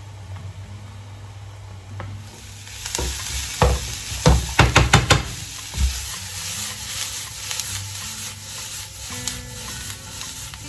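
Food dropped into a hot oiled pan starts sizzling about two seconds in, after a low steady hum. Then comes a quick run of sharp knocks as a utensil strikes and stirs in the pan, and the frying carries on with light scraping clicks.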